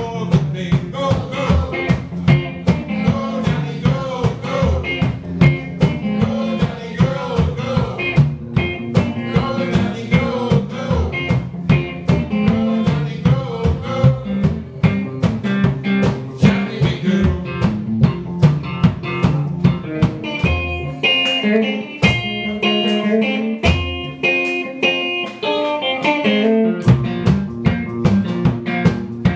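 Blues played live on guitar and washtub bass, the bass plucked in a steady rhythm under a regular beat. About two-thirds of the way through the bass drops out for several seconds while the guitar plays a high lead line, then the bass comes back in.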